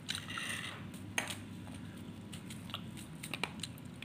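A few faint, crisp crunches and clicks of raw fruit: a short crunch at the start, a sharp click about a second in, and a quick run of small clicks around three and a half seconds in.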